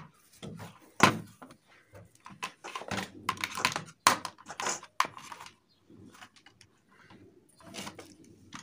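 Handling noise of wires and plastic plug connections being worked on a tabletop: a sharp click about a second in, more clicks and knocks around four to five seconds, and soft rustling between.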